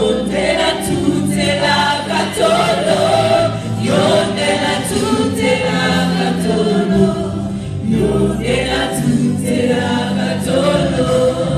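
Gospel choir singing a worship song through microphones, backed by an electric guitar.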